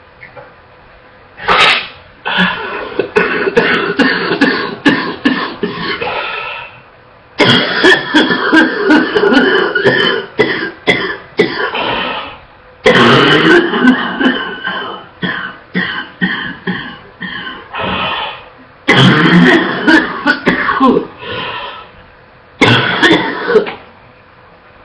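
A young woman with a wet, barking cough, coughing in repeated fits of rapid coughs. There are about five long bouts, with brief pauses between them as she catches her breath.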